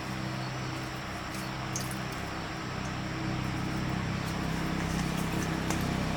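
Small generator engine running steadily, growing somewhat louder about three seconds in.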